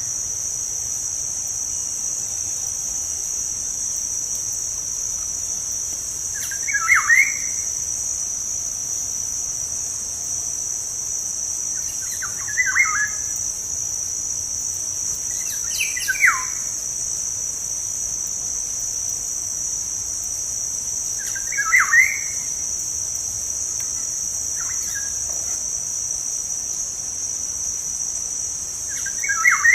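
Black-naped oriole (kepodang) giving short, fluty whistled calls, one about every five or six seconds. A steady, high-pitched insect drone runs beneath them.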